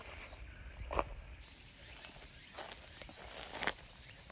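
Steady, high-pitched drone of insects in summer foliage. It cuts out for about a second near the start and then returns. A few soft knocks or rustles are heard, the clearest about a second in.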